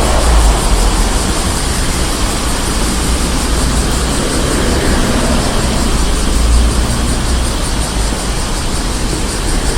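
Street traffic ambience: a steady wash of vehicle noise with a heavy low rumble, swelling briefly near the start and again past the middle as vehicles pass close.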